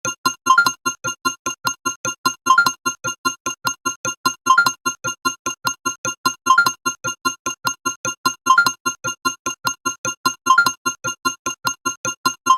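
Background music: a looping, bouncy electronic tune of short, clipped notes, with the same pattern repeating about every two seconds.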